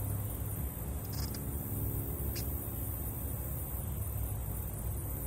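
Steady low outdoor rumble with a faint, even hum, under a high hiss; two faint ticks about a second and two and a half seconds in.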